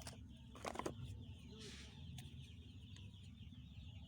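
Chickens clucking faintly: one short cluck just under a second in and a softer one past the middle, over a steady low hum.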